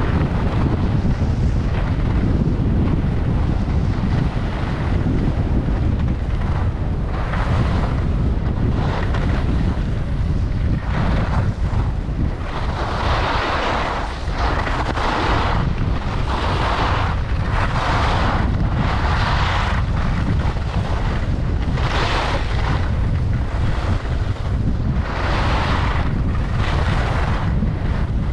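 Wind rushing over the microphone of a skier going fast downhill, a steady low rumble. Over it, from several seconds in, skis scrape and hiss on packed snow in short surges, one every second or two, as each turn is carved.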